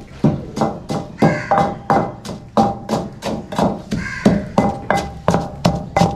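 Pestle pounding a spice mix in a mortar. The strokes fall steadily, about three a second, and each knock has a short ringing note.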